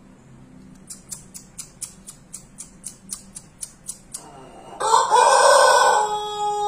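A run of light, even ticks, about four a second, then near the end a Pelung rooster breaks into a loud crow that settles into a long held note.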